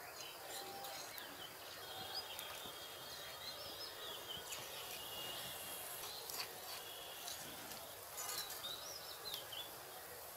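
Small birds chirping repeatedly against faint outdoor background noise, with a few light clicks of a metal spoon against clay bowls.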